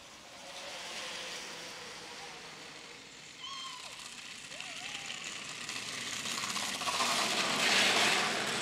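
Kick scooter wheels rolling on an asphalt path, a hiss that grows steadily louder as the riders approach. A couple of short high-pitched calls sound about halfway through.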